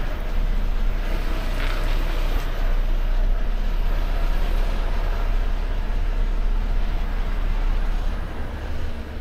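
Volvo FH 500 Aero truck's diesel engine running at low speed, heard from inside the cab as a steady low rumble while the truck creeps and turns.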